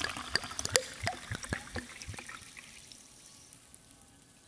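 Water dripping and trickling: irregular drops and plinks over a faint wash, thinning out and fading to near silence near the end.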